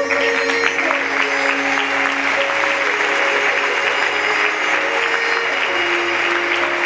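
Audience applauding and cheering over music with long held notes; the applause breaks out at the start and goes on steadily.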